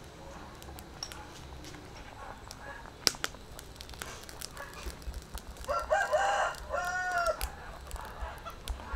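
A rooster crows once, a drawn-out crow in several arching notes, about six seconds in, the loudest sound here. Scattered faint clicks and pops run underneath, with one sharp click about three seconds in.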